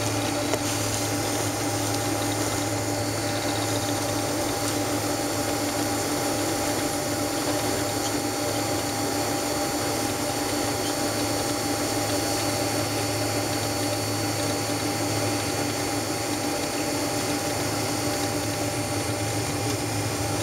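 Steady cabin drone inside a Boeing 767-300 with its jet engines at low power: an even rush of noise under a constant low hum and a few steady whining tones, with no rise in thrust.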